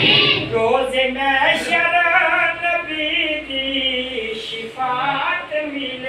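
A man's voice chanting a supplication (dua) in a long, melodic line, with held notes that waver in pitch and short breaks for breath.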